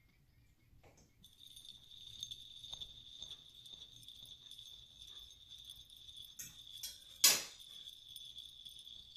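A steady high-pitched ringing tone comes in about a second in and holds, over faint clicks of a knife and fork on a plate; one sharp, louder knock sounds about seven seconds in.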